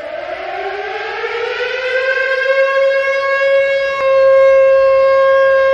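Warning siren winding up, its pitch rising over the first couple of seconds and then holding one steady wail, louder from about four seconds in: the alarm that signals an earthquake drill.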